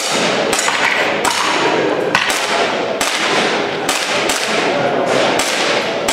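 Airsoft pistol firing single shots: about eight sharp cracks, spaced a little under a second apart, over a steady background din.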